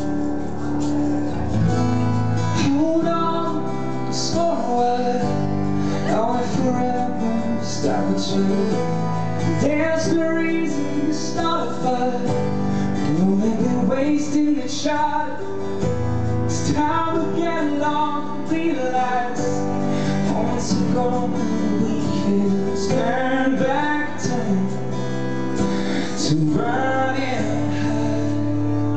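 Live pop song: a male singer sings over keyboard accompaniment, with the band's music playing throughout.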